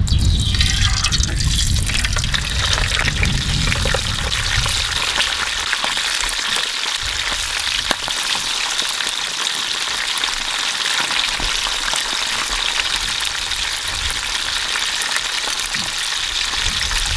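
Fish frying in hot oil: a steady sizzle with fine crackles. A low rumble runs under it for the first few seconds.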